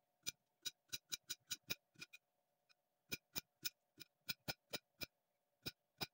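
Small kitchen knife slicing unripe plantain into thin rounds on a ceramic plate, each cut ending in a sharp click as the blade meets the plate. About three to four clicks a second, with a pause of about a second in the middle.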